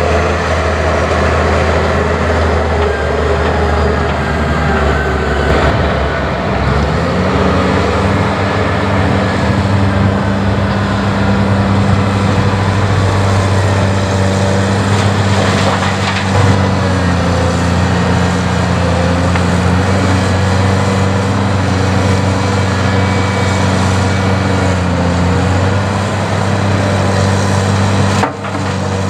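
Heavy diesel engine of a Caterpillar construction machine running under load. The engine revs up about seven seconds in, holds steady, and settles lower near the end.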